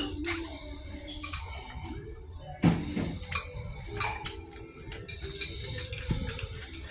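Wire shopping cart rattling as it is pushed, with scattered clinks and knocks, over faint background music.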